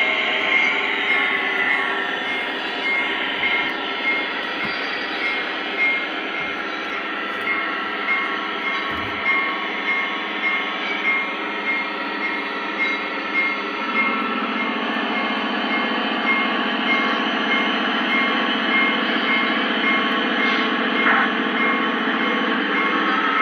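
Lionel O-gauge SD70ACe diesel locomotive running, its onboard sound system playing a steady diesel engine drone through a small speaker, with regular clicks roughly every two-thirds of a second. The engine sound grows fuller about halfway through.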